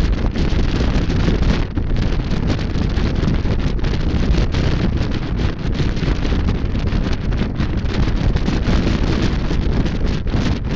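Steady, loud wind buffeting on the microphone of a motorcycle moving at road speed, with the motorcycle's engine and tyre noise underneath.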